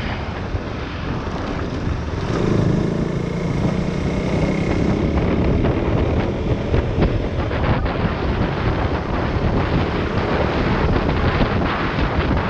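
Wind rushing over the action camera's microphone while a KTM Duke 390 single-cylinder motorcycle rides along, its engine note showing through most clearly a couple of seconds in.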